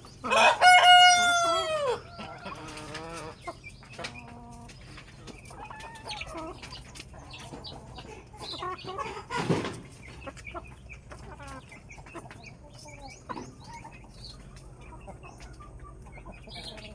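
A rooster crows once, loudly, near the start, the long call dropping in pitch at its end; after it, chickens keep clucking quietly.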